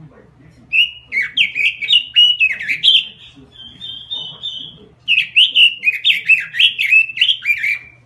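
Caged Pekin robin (red-billed leiothrix) singing vigorously: a fast warbling phrase of quickly rising and falling notes, a softer steady warble about three seconds in, then a second fast phrase from about five seconds in.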